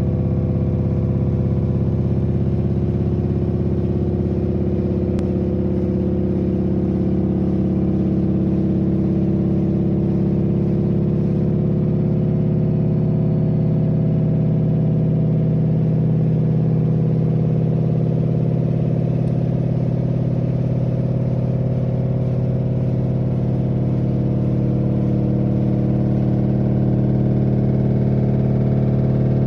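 LG F4V5RYP2T front-loading washing machine running a high-speed spin: a loud, steady hum with several tones that drift slightly in pitch. The owner takes this noise and vibration at full spin for a defect in the machine.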